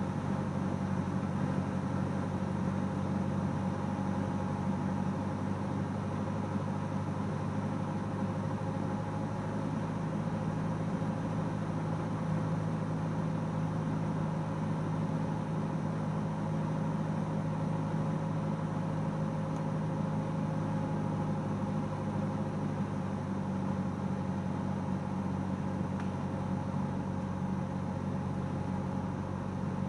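Cessna 172S's four-cylinder Lycoming engine and propeller droning steadily on final approach, heard inside the cabin.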